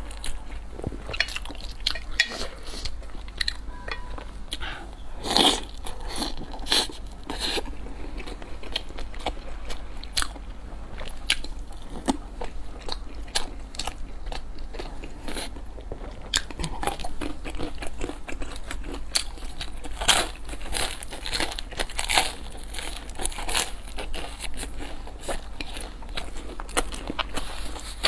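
A person eating close to the microphone, with crunchy bites and chewing and a steady run of small crackles and clicks. A louder crunch comes about five seconds in, and a cluster of sharper bites comes near the twenty-second mark.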